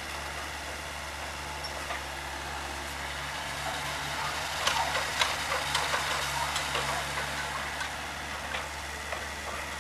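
Komatsu PC40-7 mini excavator's diesel engine running steadily. From about four and a half seconds in, for several seconds, a quick run of sharp clatters of crushed stone is loudest over it.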